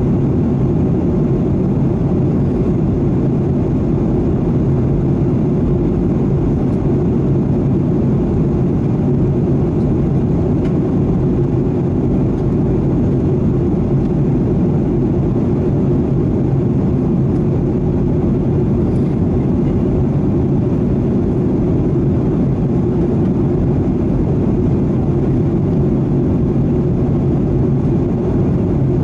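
Boeing 737-800 in cruise, heard inside the cabin: a steady low drone of its CFM56-7B turbofan engines and the air rushing past the fuselage.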